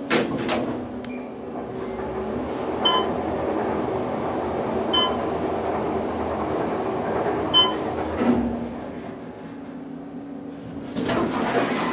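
Otis bottom-drive traction elevator car heard from inside: the doors shut with a thump, then the car travels with a steady rumble and hum. Three short beeps sound a couple of seconds apart. The running noise drops away about nine seconds in, and a clatter follows near the end.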